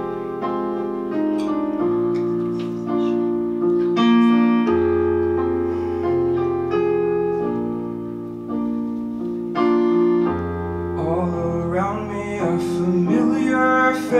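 Acoustic piano playing a slow introduction of held chords over low bass notes that change every couple of seconds. A man's voice comes in singing over the piano near the end.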